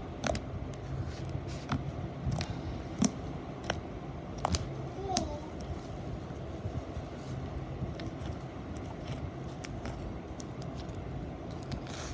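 Hands squishing and stretching thick slime, giving irregular small clicks and pops over a steady low background hum.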